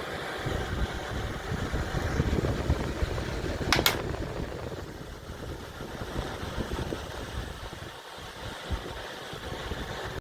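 Aerospeed BX-400 20-inch box fan running with a steady rushing of air and motor noise. A sharp click comes a little under four seconds in, after which the noise gradually dies down.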